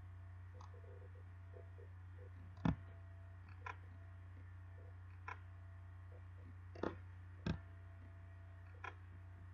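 Computer mouse clicking: about six short, sharp clicks at irregular intervals, the loudest a little under three seconds in, over a steady low electrical hum.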